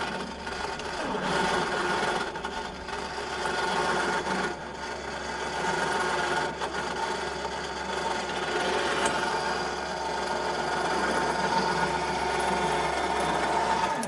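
12 V electric winch on a truck-mounted crane running steadily, its motor and gears whirring as it lowers. It stops abruptly at the end.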